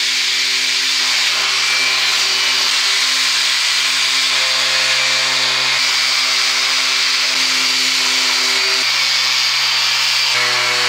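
Makita DBO180Z 18 V cordless random orbital sander running while sanding rough wood overhead: a steady motor hum with a constant hiss from the sanding disc on the timber.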